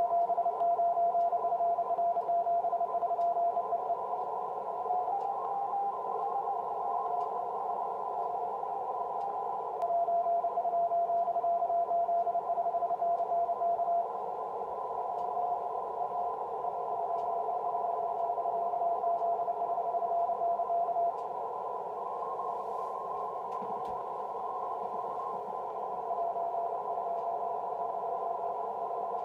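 Morse code (CW) signal from the DXpedition station 3B9FR on the 6-metre band, heard through a Yaesu FT-736 receiver tuned to 50.105 MHz: a keyed tone of steady pitch over band hiss. The signal is strong for the first few seconds and again about ten seconds in, weaker in between, with a second, fainter tone of slightly higher pitch.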